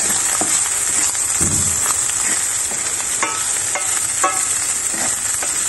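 Chopped wine sausages and sliced garlic sizzling steadily in a stainless steel frying pan, with a wooden spatula scraping and knocking on the pan as they are stirred, three sharp strokes a little past the middle.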